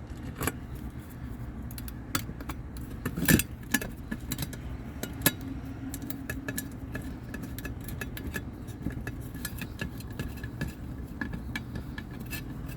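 Small metal tools and parts clicking and clinking as they are handled during furnace inducer motor work, with one sharper knock about three seconds in, over a steady low hum.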